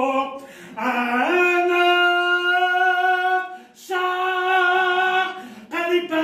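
A man singing unaccompanied, holding long sustained notes in a few phrases with short breaks between them, the pitch stepping up about a second in.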